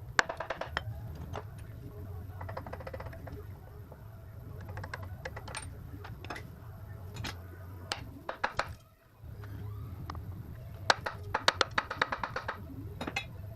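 Socket ratchet clicking in quick runs with scattered metal clinks as bolts are worked off a truck frame, over a steady low hum.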